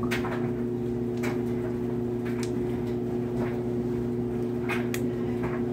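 A steady low hum of a few fixed tones, with a few faint clicks and taps over it.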